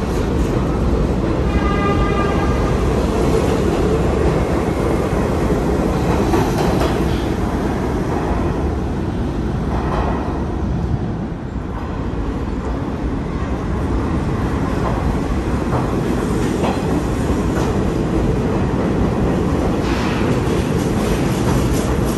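New York City subway trains at an underground platform: a heavy, steady rumble and wheel clatter as a train pulls out, with a brief pitched whine about two seconds in. The noise eases a little about halfway, then builds again as the next train approaches and rolls in alongside.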